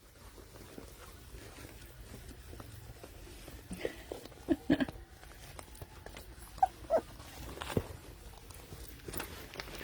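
Puppies whimpering and squeaking: short, scattered high cries, starting about four seconds in and recurring several times.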